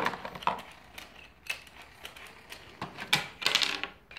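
Plastic toy tool pieces clicking and clattering as they are handled and shifted about in a cardboard box, with a quick run of rattling clicks about three seconds in.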